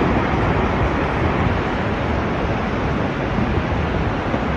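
Earthquake-triggered rockslide on a steep mountainside: a steady rumble of falling rock and debris, heaviest in the low end.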